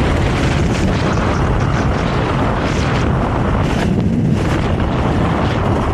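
Honda CRF300L trail bike's single-cylinder engine running while riding off-road, with heavy wind noise on the microphone.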